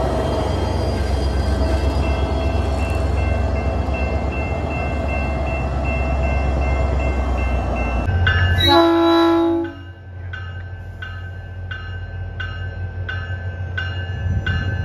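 SunRail diesel locomotive passing close by, its engine giving a loud, steady low rumble. After a cut, a train horn sounds one short blast about a second long, then a bell rings steadily about every half second as the train rolls past.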